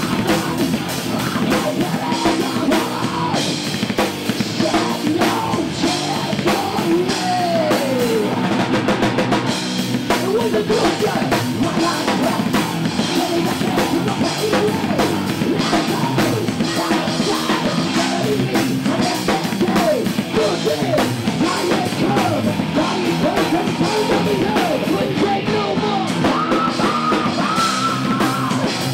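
Metal band playing live, with fast, busy drumming on a full kit and cymbals over guitars.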